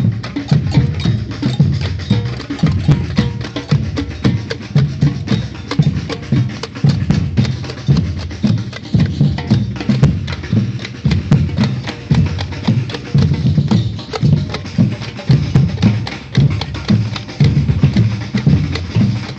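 Batucada percussion ensemble playing a steady, driving Brazilian rhythm: deep bass drums pulsing evenly under a dense stream of sharp, rapid hits from the higher drums and percussion.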